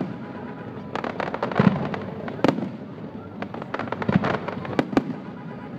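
Aerial fireworks display: shells bursting in quick runs of bangs and crackles, one run about a second in and another from about three and a half seconds in.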